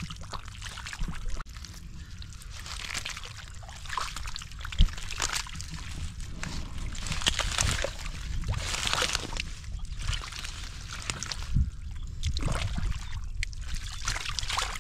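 Bare hands squelching and sloshing through wet mud and shallow muddy water, groping for fish, with irregular wet scooping sounds and a couple of sharper splashes, the sharpest about five seconds in.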